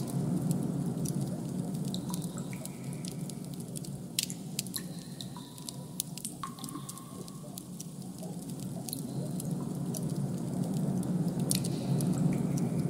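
Ambient sound-design soundtrack: a steady low hum under scattered sharp clicks and a few short, high, drip-like plinks.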